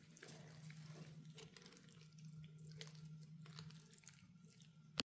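Faint wet squishing and light clicks of a fork mixing pasta salad through a thick mayonnaise dressing in a bowl, over a steady low hum, with a sharp click right at the end.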